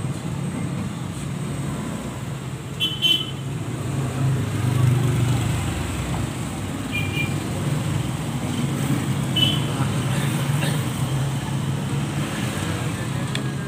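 Steady rumble of road traffic, with three short horn toots a few seconds apart.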